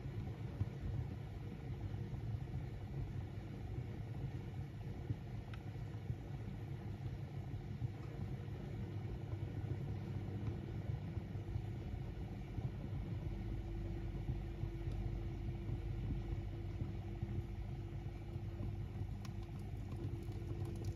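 Small wood fire burning in a baking oven, lit with an oil-soaked egg-carton fire starter among split birch logs: a steady low rumble with a few faint crackles.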